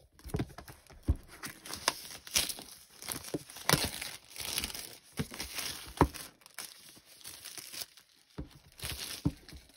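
Packaging wrap being torn open and crumpled by hand to free a notebook: a steady crinkling crackle with sharp tearing snaps, briefly dying down near the end.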